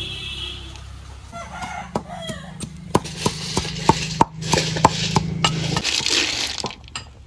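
Metal pestle pounding chillies and garlic in a metal mortar: a run of sharp knocks, about three a second, that stops a little before the end. A hiss comes in during the second half, and a chicken clucks in the background.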